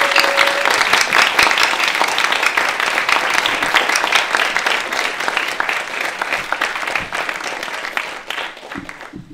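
Small audience applauding: dense hand-clapping that slowly thins out and dies away near the end.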